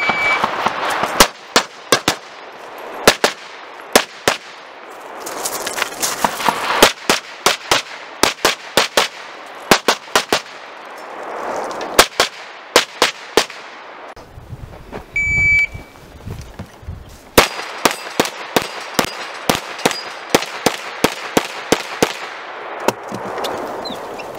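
Pistol shots fired in quick strings, each shot ringing out with an echo, during a practical shooting stage. A short electronic beep from the shot timer opens the run, and a second beep about 15 seconds in is followed by another series of rapid shots.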